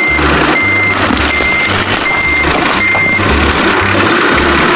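Vehicle reversing beeper sounding a steady beep about every three-quarters of a second, stopping about three seconds in, over background music with a changing bass line.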